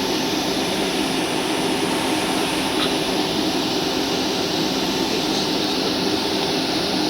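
Steady jet engine and airflow noise heard inside the passenger cabin of a Boeing 757-200 in flight: an even rush with a low steady hum, unchanging throughout.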